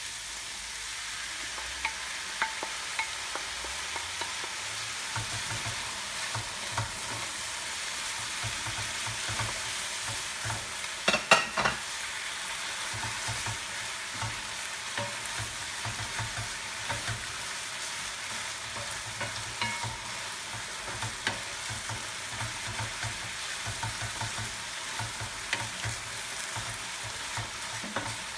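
Chicken and sauce sizzling in a hot wok as it is stirred, with the spatula scraping and clicking against the pan. A louder clatter comes about eleven seconds in.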